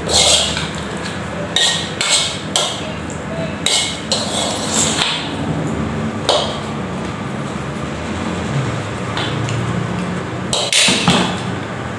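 Metal spoon clinking and scraping against a wok while noodles are slurped and eaten, in short irregular bursts, with a cluster about eleven seconds in, over a faint steady low hum.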